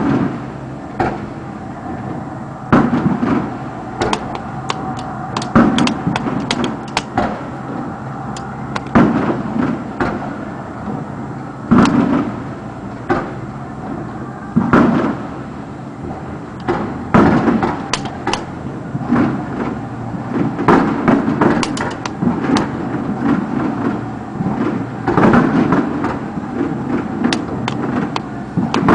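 Fireworks bursting: a steady string of booms every second or two, with sharper cracks and crackling in between.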